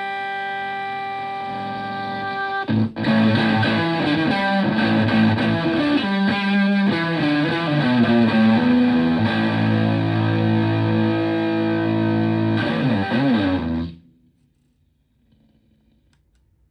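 Electric guitar played through a Zonk Machine fuzz pedal reproduction into a Twin Reverb-style amp: a held fuzzy chord, then a fresh strike about three seconds in and about ten seconds of distorted notes with wavering pitch bends near the end. It cuts off abruptly, leaving faint amp hiss.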